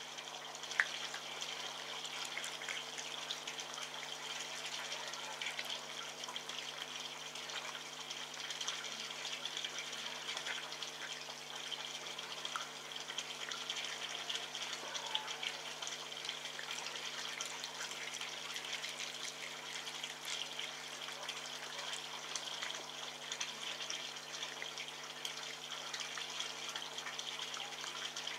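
Red fox eating wet meat close to the microphone: irregular, faint wet chewing and smacking clicks, a sharper one about a second in, over a steady hiss and a low electrical hum.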